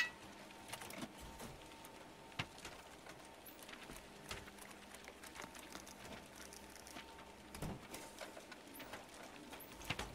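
Faint, scattered light taps and clicks over a quiet background hiss, with a few sharper clicks standing out about two and a half, seven and a half and ten seconds in.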